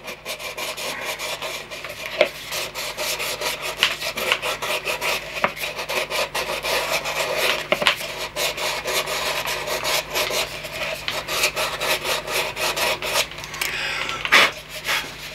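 Sandpaper rubbing on plasticard wrapped round a PVC Foamex cylinder, in rapid back-and-forth strokes, with a louder scrape near the end. The sanding smooths the glued joint and the ridge that cutting plasticard leaves along its edges.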